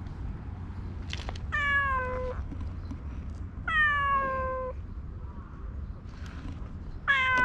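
Domestic cat meowing three times, each call just under a second long and sliding slightly down in pitch; the third starts near the end.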